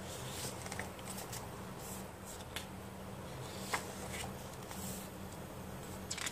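Glossy pages of a thick photobook being turned and handled by hand: soft paper rustles and light clicks about once a second, with a sharper click near the middle and another near the end.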